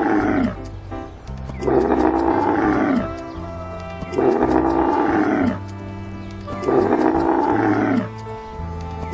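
A large animal's roar, repeated identically about every two and a half seconds, each call just over a second long and dropping in pitch as it ends, over background music.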